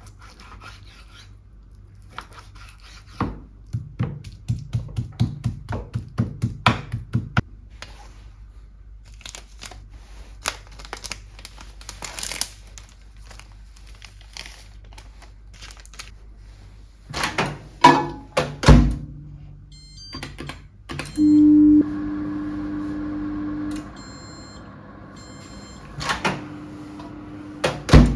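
A kitchen knife chops pork belly on a cutting board in quick repeated strikes, then a paper packet rustles and a heavy thump follows. After a few short beeps, a microwave oven runs with a steady hum for several seconds. Near the end come a click and a thunk as the oven door is pulled open.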